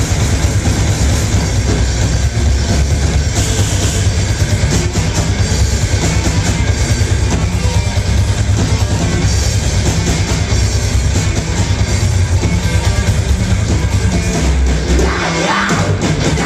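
Live heavy rock band playing loud: distorted electric guitars, bass, drum kit and keyboard. Near the end the bass and kick drop out briefly and a shouted vocal comes in.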